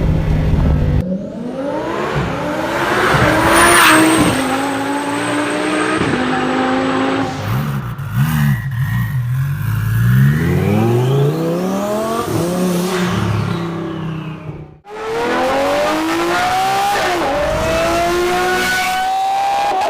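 Lamborghini supercar engine under hard acceleration, its pitch climbing repeatedly and dropping back at each upshift, with the sound cutting abruptly to a new run about a second in and again near fifteen seconds.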